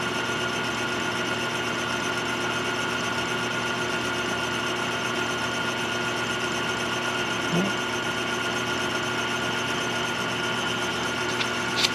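Lathe running at a steady speed, its motor giving an even hum with several steady tones, as a ring spins on a mandrel in the chuck.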